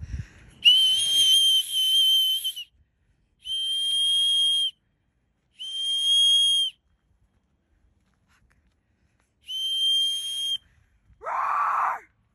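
A whistle blown in four long, steady, high-pitched blasts with pauses between, used to scare bears off the trail. Near the end there is a short, lower, rising sound.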